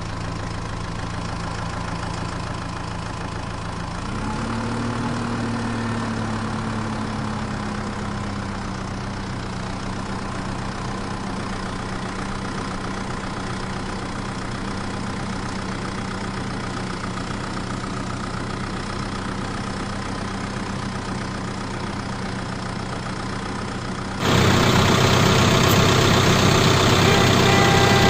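Dubbed truck engine sound effect: an engine idling steadily, revving up about four seconds in and easing back down over several seconds. Near the end it cuts suddenly to a louder, harsher engine sound.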